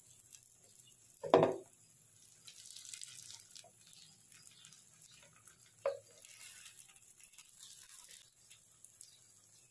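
Egg-and-noodle omelette frying faintly in oil in a nonstick pan. The spatula knocks sharply against the pan about a second and a half in, and more lightly about six seconds in.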